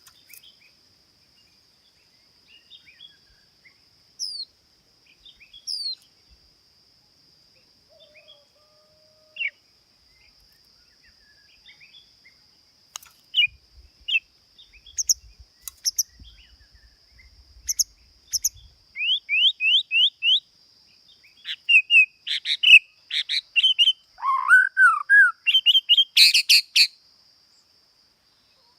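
A songbird chirping and singing: scattered single notes at first, then a quick run of short rising chirps that grows busier and louder in the second half. A faint steady high-pitched tone sits under it throughout.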